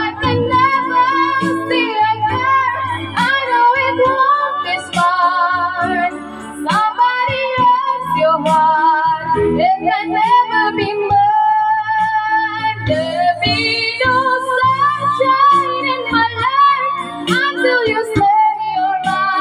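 A young girl singing a ballad into a microphone over instrumental backing music, holding long notes with vibrato.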